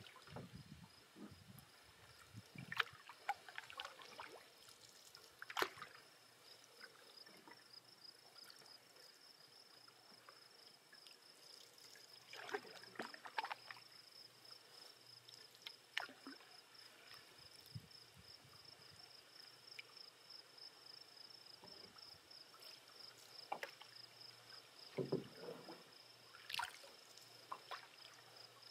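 Faint canoe paddling: paddle strokes dip and drip in calm water, with a few light knocks of the paddle against the wooden canoe, every few seconds. Behind them runs a steady, high, pulsing insect trill.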